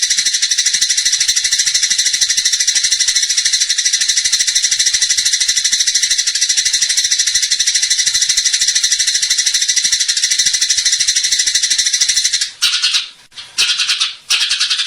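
Long-tailed shrike (cendet) singing a fast, unbroken chattering song, breaking off briefly twice near the end.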